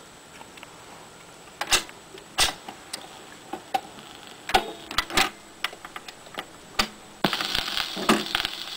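A Panasonic suitcase record player's automatic record changer cycling, which the owner thinks is a BSR changer. It makes a string of separate mechanical clicks and clunks as the tonearm swings out over a 45 and lowers. About seven seconds in, a steady hiss with a few crackles begins through the speakers: the stylus in the record's lead-in groove.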